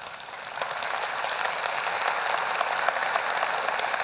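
Audience applause, many hands clapping: it builds over the first half second and then holds steady.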